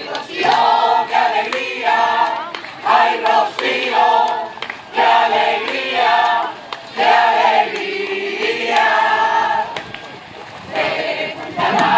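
A crowd of people singing together in unison, in short sung phrases about a second long with brief breaks between them; the singing drops away briefly near the end, then starts again.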